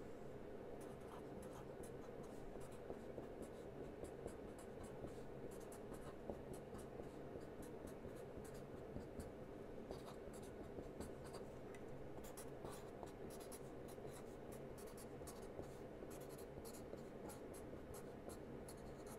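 Felt-tip permanent marker writing on a card: faint, quick scratchy strokes of hand lettering, starting about a second in and going on in short runs.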